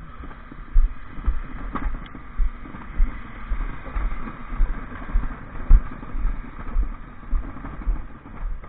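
Walking footsteps thudding about twice a second, over the steady running of a Dennis Eagle Elite 6 bin lorry's engine.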